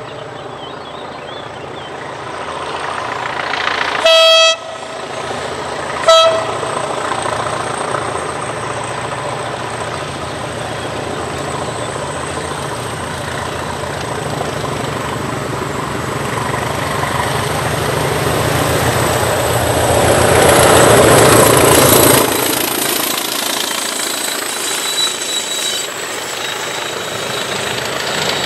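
Diesel locomotive approaching with a train of coaches: a horn blast about four seconds in, lasting about half a second, and a short toot two seconds later. The engine grows louder until the locomotive passes at its loudest a little after twenty seconds, then the coaches roll by.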